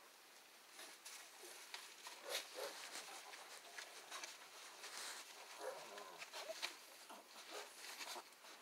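Pit bull puppies shuffling about in straw bedding: faint rustling and scratching, with a few small squeaks.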